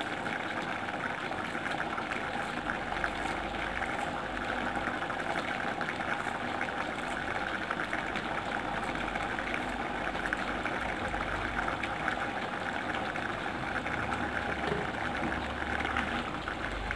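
Chicken and drumstick curry simmering in a pot on a gas stove: a steady bubbling hiss with fine crackles.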